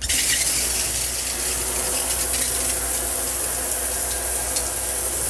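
Water running from a handheld bathtub sprayer, a steady hiss that starts abruptly.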